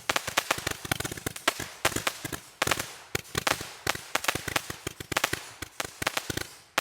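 200-shot Roman candle firing: a rapid, irregular string of sharp pops and bangs, several a second, as each shot launches and breaks individually in the air.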